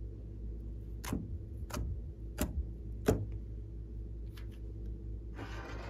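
Four sharp clicks about two-thirds of a second apart, then two fainter clicks and a short crackling rustle near the end, over a steady low hum.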